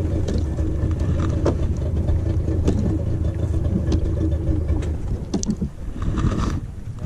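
Motorboat engine running at a steady idle-like hum, with a few light clicks over it; the engine sound weakens near the end.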